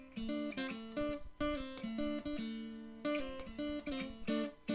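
Intro music: a guitar playing a picked and strummed tune, note after note ringing and decaying.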